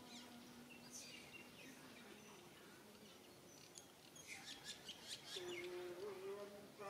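Faint chirping of birds, short high calls scattered through, with a faint steady held call in the second half.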